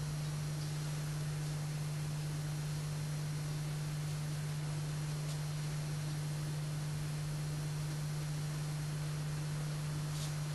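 Steady low hum over a constant hiss, with two faint ticks near the end.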